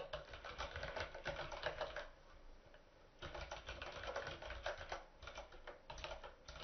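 Typing on a computer keyboard: three runs of quick keystrokes separated by short pauses.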